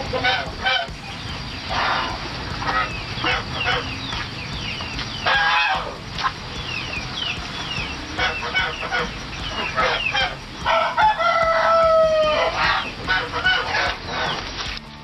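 Backyard chickens clucking and squawking in short calls, with a rooster crowing once in a long call about eleven seconds in.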